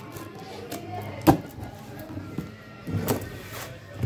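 Scissors cutting packing tape on a cardboard box, with a sharp snip about a second in and a few more snips and rustles near the end.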